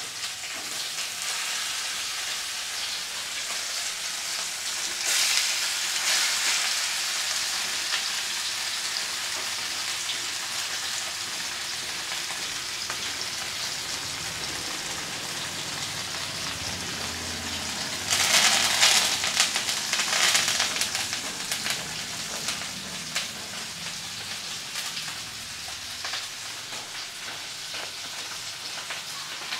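Masala-marinated fish frying in hot coconut oil in a pan: a steady sizzle, swelling louder for a couple of seconds about five seconds in and again at around eighteen to twenty seconds.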